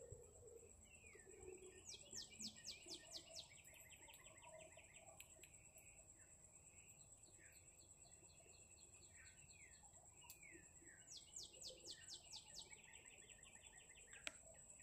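Faint songbird song: a rapid trill of quick descending notes that runs on into a lower, faster trill, sung twice, with scattered short chirps between. A steady high-pitched whine sits underneath, and a single sharp click comes near the end.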